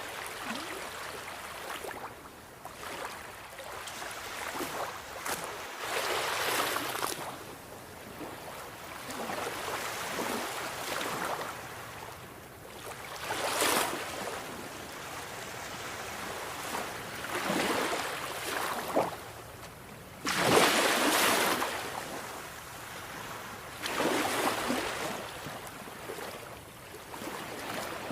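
Sea waves breaking in irregular surges of rushing water every few seconds, the loudest one hitting suddenly about twenty seconds in.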